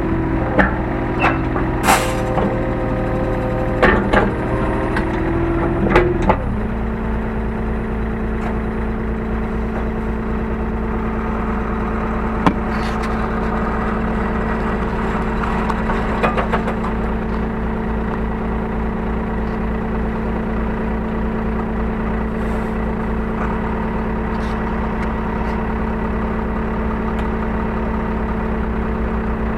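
Hyundai R35Z-9 mini excavator's diesel engine running, heard from inside the cab, with several sharp clunks in the first few seconds. About six seconds in, the engine speed drops to a lower, steady idle. A couple of single knocks come later.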